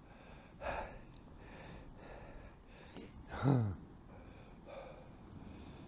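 A man's breathing: a short breathy exhale near the start and a brief voiced grunt about three and a half seconds in, over a faint steady background hiss.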